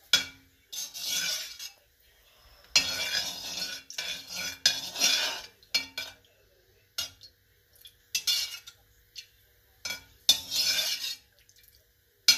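A slotted metal spoon scraping and clinking against the inside of a stainless steel karahi as it stirs shallow oil, in irregular strokes with short pauses between them.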